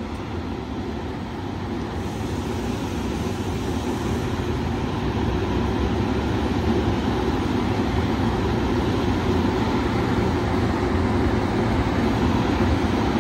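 Steady low rumble and hum of a stopped Amtrak Capitol Corridor bi-level passenger train idling at the platform, slowly growing louder.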